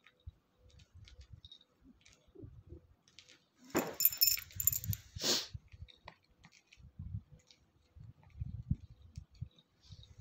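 A cat's collar jingling in a brief cluster of bright, metallic chinks about four seconds in, as the cats move against each other. Soft low rustling and bumps of the cats shifting on bedding come and go around it.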